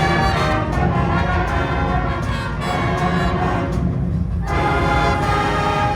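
Showband brass and wind ensemble playing sustained chords. The upper parts drop out briefly about four seconds in, then the full sound comes back.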